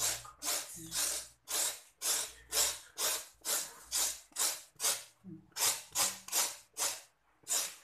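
A kitchen knife scraping the skin off a ridged luffa in quick repeated strokes, about two a second, with a short pause near the end.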